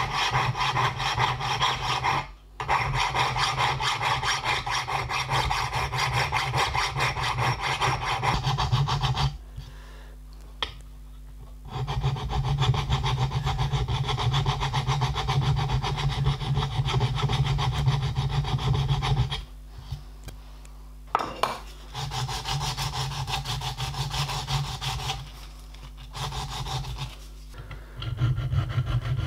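Hand file rasping on a small steel part clamped in a bench vise, in long even runs broken by a brief dip and several pauses of a couple of seconds.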